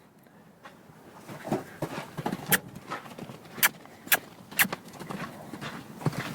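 A mustang's hooves and a person's footsteps on the ground: irregular sharp steps, a few a second, getting louder.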